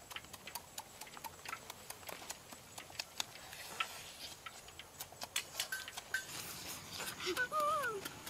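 Close-up eating sounds of roasted chicken being torn and chewed by hand: a stream of irregular wet clicks and smacks. Near the end comes a brief wavering pitched sound that slides up and down.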